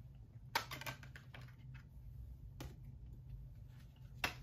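Scattered light clicks and taps of Blu-ray discs being handled on the plastic hub of a SteelBook case. The sharpest clicks come about half a second in and near the end.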